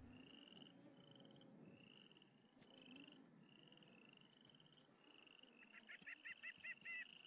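Faint animal calls: short high calls repeating about every 0.7 seconds, with a quick run of about seven louder calls about five and a half seconds in.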